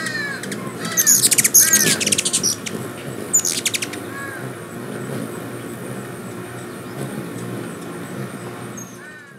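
Ruby-throated hummingbirds at a nectar feeder: loud bursts of rapid, high squeaky chatter about a second in and again around three and a half seconds, among short repeated chirps. The sound fades out at the very end.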